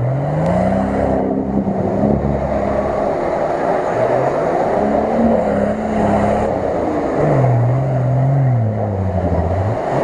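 Nissan Patrol's engine revving hard under load while driving through a mud pit. The pitch climbs steeply in the first second, holds high, then drops lower over the last few seconds.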